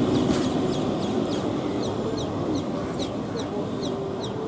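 EMU local train running away down the track, its rumble slowly fading, with a steady run of short high chirps, about two or three a second.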